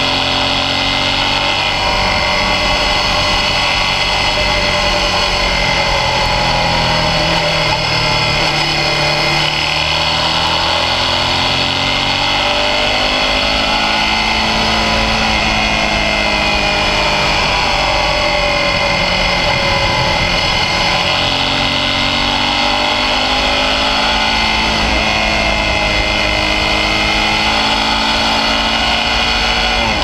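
Suzuki V-Strom 650's V-twin engine pulling through a run of bends, its pitch rising and falling repeatedly as the throttle is rolled off and back on, over a steady rush of wind and road noise.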